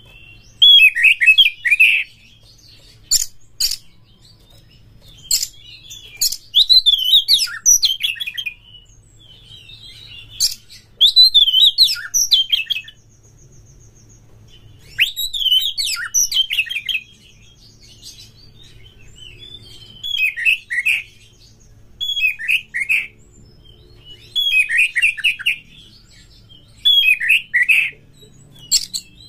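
Oriental magpie-robin singing its loud, aggressive fighting song: bursts of varied, rapidly bending whistled phrases about one to two seconds long, repeated with short pauses and mixed with sharp clicking notes.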